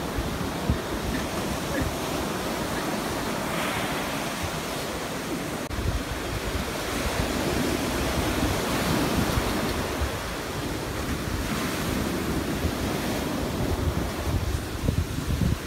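Ocean surf breaking and washing up the sand in a continuous rush, with wind buffeting the microphone in gusty low rumbles.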